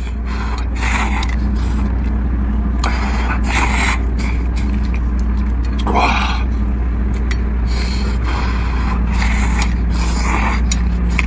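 A man slurping and chewing noodles, in short breathy bursts every second or two, over a steady low rumble.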